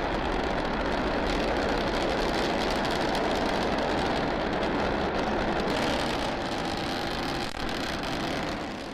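SpaceX Starship prototype's Raptor rocket engines in flight, a steady rushing roar that eases off slightly near the end.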